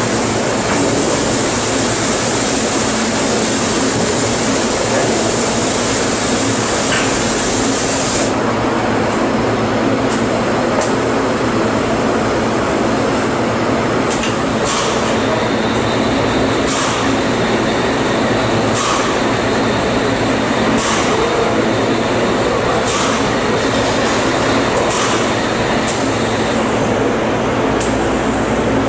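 Automatic drum filling machine running: a loud, steady mechanical hum and rush. A strong hiss lasts for the first eight seconds or so, then short hisses come every second or two.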